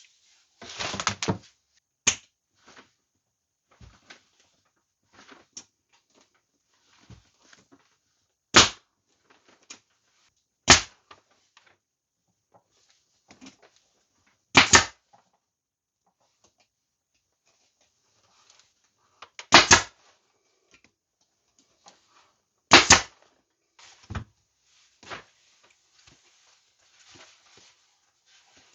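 Hand staple gun driving staples through seat-cover fabric into a motorcycle seat base: about seven sharp snaps a few seconds apart, with a quick cluster about a second in, and faint handling and rustling of the fabric between them.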